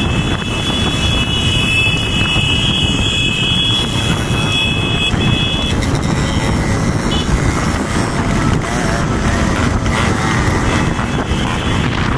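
Many motorcycle and scooter engines running together in a moving pack, a dense steady rumble. A high steady tone sits over it for the first half and stops about six seconds in.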